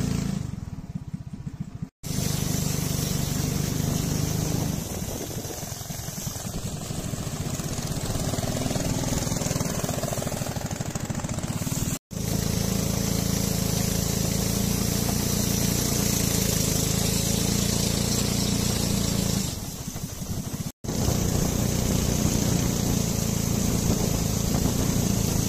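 Long-tail boat engine running steadily as the boat moves across the lake, with wind and water rushing past. The sound breaks off for an instant three times.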